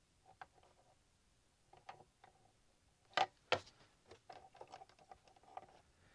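Faint scattered clicks and light taps of a memory chip being pulled from the EPROM programmer's socket and another chip being set in. The two loudest clicks come about three seconds in, half a second apart.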